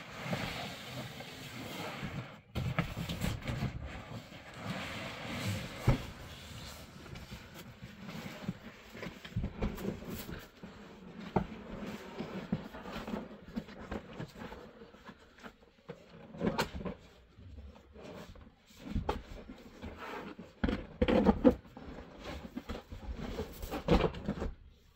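A large white roofing sheet rustling as it is unrolled and dragged across a steel roof frame, with irregular knocks and bumps against the frame.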